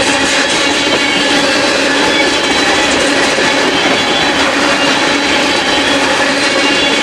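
Freight train of tank cars rolling past: a loud, steady noise of steel wheels on rails, with several thin steady tones ringing over it.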